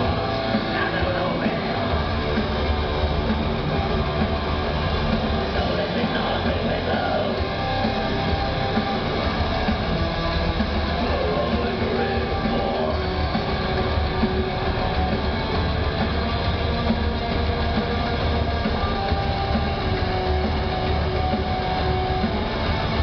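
Black metal band playing live: distorted electric guitars and drums, loud and unbroken, heard from within the crowd through a small recorder's microphone that clips the top end.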